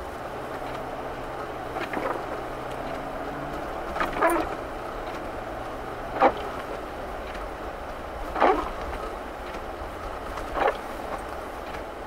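Inside the cabin of a V8 Ford Grand Marquis driving on a snow-covered road: a steady hum from the engine and tyres. Over it the windshield wipers sweep about every two seconds, each pass giving a short, wavering squeak across the glass.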